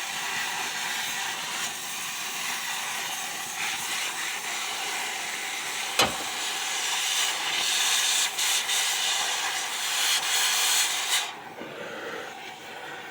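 Oxy-fuel cutting torch hissing steadily as it burns out a rivet, with one sharp pop about six seconds in. The hiss grows louder toward the end, then cuts off abruptly.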